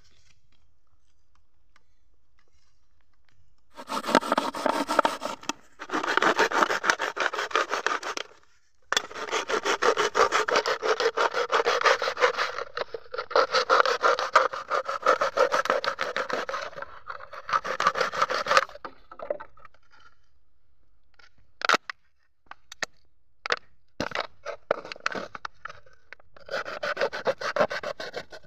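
A knife blade sawing through a thin plastic bottle, a fast rasping back-and-forth that runs in stretches of a few seconds with short pauses. It begins about four seconds in; a few sharp plastic clicks come a little past the middle before the sawing starts again near the end.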